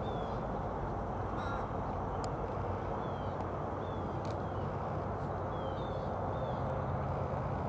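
Crows cawing in short, repeated calls over steady background noise.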